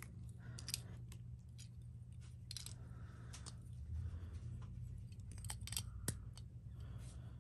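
Light plastic and metal clicks and clacks from handling Beyblade Metal Fight parts, a red clear plastic wheel being fitted onto a metal fusion wheel, scattered irregularly over a steady low hum.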